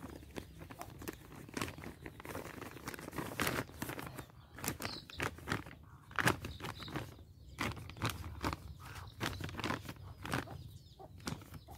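Irregular crinkling and rustling of a black plastic polybag as hands press and scrape soil into it.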